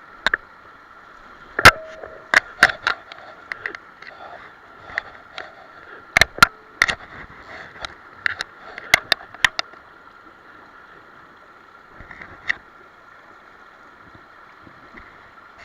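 Mountain stream rushing steadily, with a string of sharp clicks and knocks over the first ten seconds and only a couple after that.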